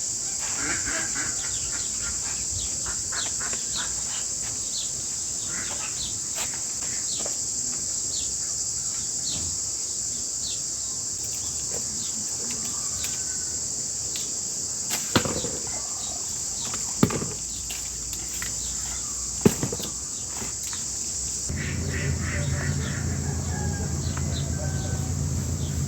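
Outdoor ambience: a steady, high insect buzz with short bird chirps over it. Three sharp knocks come midway, and a low hum joins in for the last few seconds.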